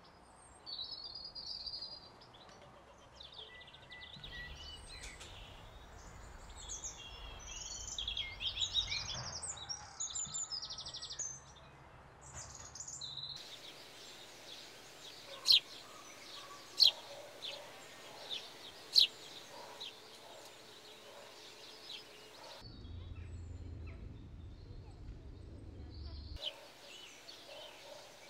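Wild birds singing in the countryside, several songs overlapping, with the recording cutting to a new place a few times. Through the middle come a handful of loud, sharp chirps, and a low rumble lies under parts of it.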